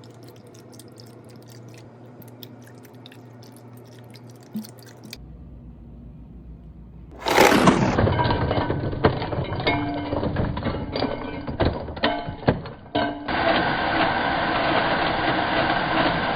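Blender crushing ice. It starts suddenly about seven seconds in with a clatter of knocks and chinks, then settles into a steadier run over the last few seconds; before it, only light handling clicks.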